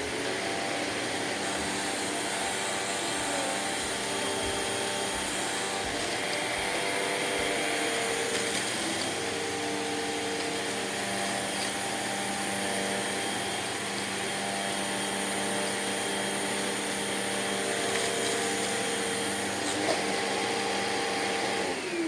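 Hoover WindTunnel vacuum cleaner switched on, its motor spinning up and then running steadily while it sucks up a pile of crushed crackers from the floor. Near the end it is switched off and winds down.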